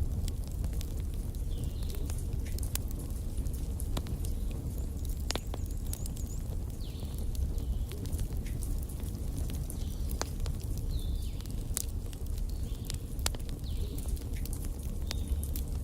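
Wood fire burning in a fireplace: a steady low rumble of the flames with irregular sharp crackles and pops from the burning logs.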